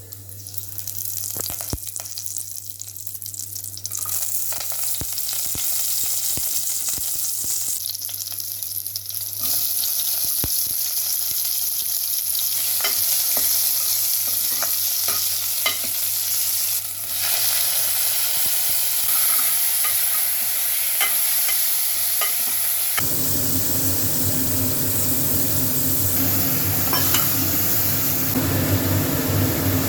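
Cumin seeds sizzling in hot oil in a pan, with a spoon clicking against the pan now and then as it is stirred. The sizzle grows louder over the first ten seconds, and from about two-thirds of the way in it turns fuller and lower.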